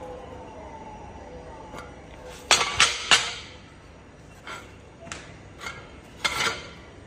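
Welded 3 mm mild steel plate clanking as it is handled: three sharp metal knocks in quick succession about two and a half seconds in, then a few lighter clinks.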